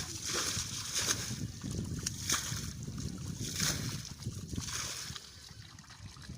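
Shallow muddy water sloshing and splashing in a few strokes a second or so apart, over a steady low churning. The strokes die away about four seconds in.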